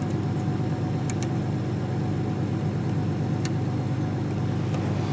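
The 1986 Chevy S10's 2.8-litre V6 idling steadily, heard from inside the cab, with a few faint clicks about a second in and again at about three and a half seconds.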